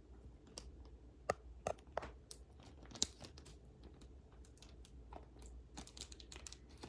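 Handling of a newly unboxed slime order: irregular crinkling and crunching clicks, with the sharpest snaps about a second and a half in and at three seconds.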